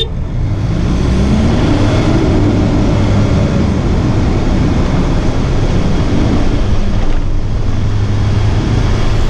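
Four-wheel-drive ute engines revving hard under full load as the utes accelerate up a soft sand hill, the engine pitch climbing about two seconds in and then holding a steady strained note.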